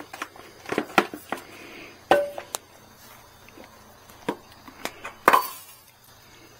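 The plastic airbox of an RPS Condor 150 motorcycle being worked loose from the frame by hand, giving a string of irregular clicks and knocks. The loudest knock comes about five seconds in.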